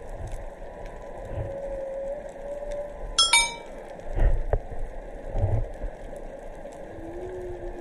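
Humpback whale song heard underwater: a held moaning note early on, a high squealing call with many overtones about three seconds in, and low grunts near the middle, over a faint steady crackle.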